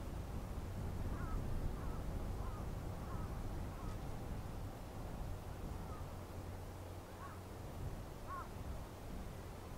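Low, steady drone of an ATR 42's twin turboprop engines at takeoff power, heard from far behind as it rolls down the runway. Short bird calls sound about eight times over it.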